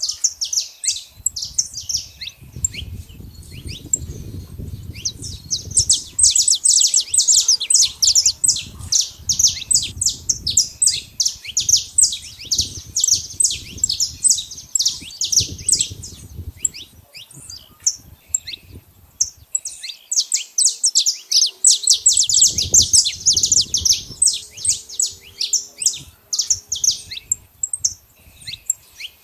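Saffron finch singing: long bouts of rapid, high chirps with short pauses between them, over an intermittent low rumble.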